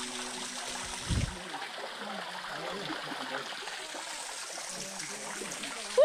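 River water flowing and trickling over rocks, heard from the surface of the pool. A short low thump about a second in, as the tail of background music fades out.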